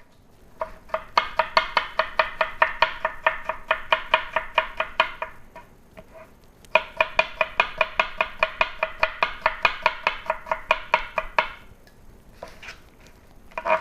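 Knife chopping rapidly on a cutting board, about five strokes a second, in two runs of several seconds with a short pause between them.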